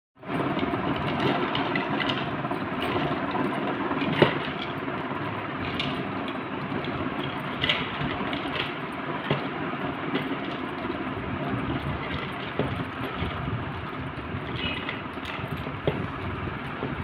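Parle-G biscuits being snapped and crumbled by hand into a bowl: scattered small cracks and clicks over a steady background rush, the sharpest crack about four seconds in.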